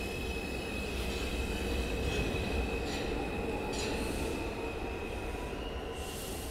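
R142 subway train pulling out and running away down the track: a low rumble with a steady high-pitched wheel squeal, easing off through the second half as the train recedes.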